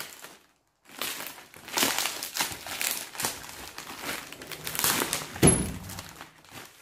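Clear plastic air-column cushion wrap crinkling and crackling irregularly as it is pulled open and off a boxed item, with one sharper, louder crinkle about five and a half seconds in.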